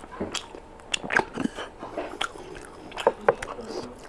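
A person eating a curry-coated bone by mouth: chewing and biting, with wet mouth clicks and a few sharp crunches, the loudest about a second in and around three seconds in.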